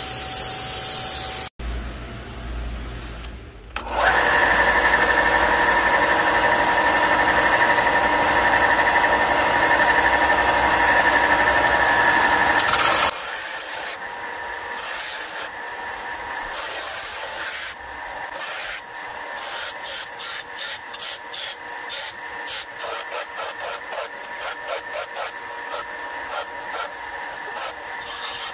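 Bench belt sander (4 x 36 inch belt with a 6 inch disc) running with a steady hum, then sanding the edges of an aluminium plate; from about halfway the passes come as quick, repeated scrapes because the footage is sped up five times.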